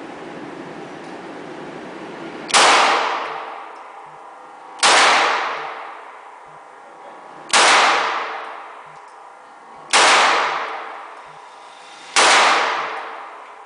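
Springfield XD9 9mm pistol firing five single shots, slow and evenly spaced about two and a half seconds apart, each crack ringing out and fading in the range's echo.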